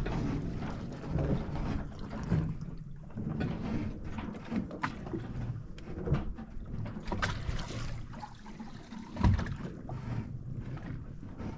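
Water sloshing and lapping around the stern of a drifting sailboat, with scattered small knocks and one heavier thump about nine seconds in.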